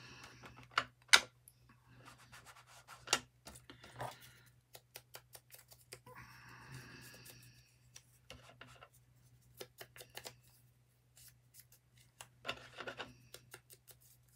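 Hands handling craft supplies: plastic ink pad cases being set down and paper pieces moved about, giving scattered clicks and taps, with a few stretches of rubbing and rustling. The sharpest click comes about a second in.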